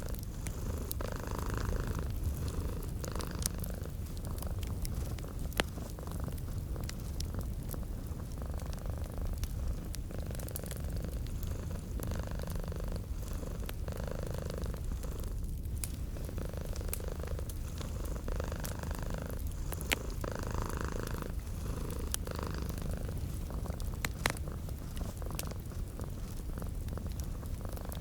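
Domestic cat purring steadily in slow, regular swells, over fireplace crackle with a few sharper pops.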